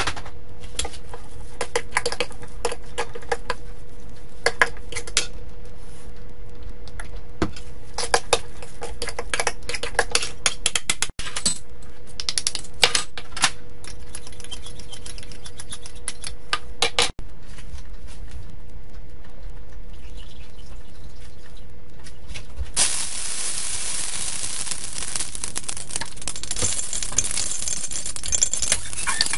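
A metal fork clinking and scraping against a stainless steel mixing bowl as sliced beef is tossed in its marinade, then a spoon tapping and stirring in a small measuring cup to mix cornstarch into water. About 23 seconds in, a loud steady hiss from the hot wok on the stove sets in.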